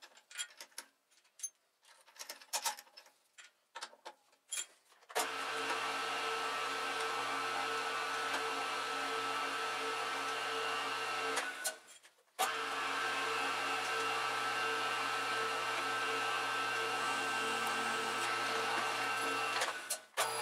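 Scattered clicks and rubs as a tool is fitted in the chuck, then the round column mill's spindle motor starts and runs with a steady whine while spot-drilling and drilling a steel plate. It cuts out briefly about halfway through and starts again.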